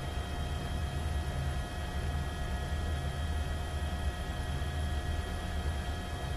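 Helicopter noise heard from aboard: a steady, throbbing low rumble of the rotor, with a few steady high tones from the engine over it.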